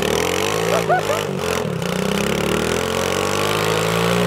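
Pit bike engine held at high revs, the pitch wavering up and down a little, while the rear wheel spins in soft dirt and throws it out behind.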